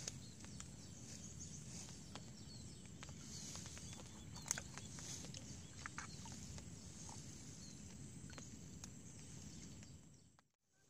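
Outdoor swamp ambience: a steady low rumble with scattered faint clicks and brief chirps. The sound drops out almost completely near the end.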